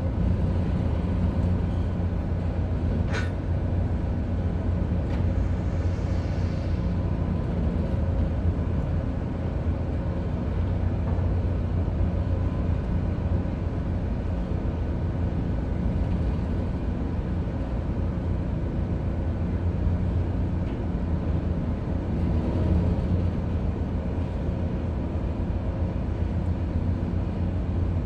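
Steady low drone of a ship's engine machinery running, with a single sharp click about three seconds in.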